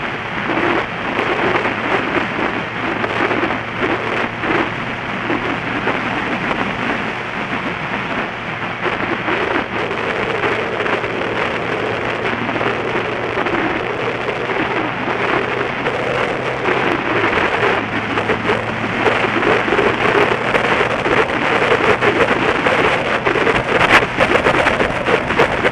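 Wind rushing over the camera microphone of a moving motorcycle, a dense steady noise, with the engine's steady drone beneath it. The engine note dips briefly about 17 seconds in.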